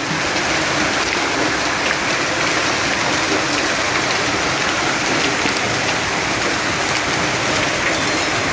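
Hailstorm: hail and heavy rain pelting down on the ground and nearby surfaces, a steady dense hiss with faint ticks of stones striking.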